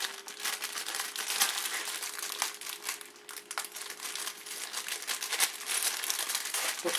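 A package of brake pad hardware clips being opened and handled, with irregular crinkling throughout.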